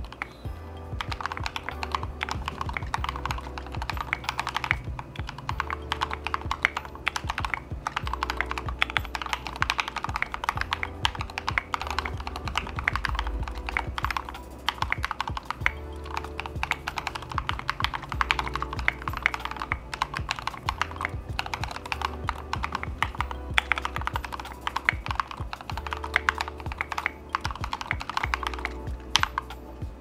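Continuous typing on an Idobao ID80 V2 mechanical keyboard with lubed Gateron Black Ink V2 linear switches and PE foam: a dense, fast run of key clacks. Background music plays underneath.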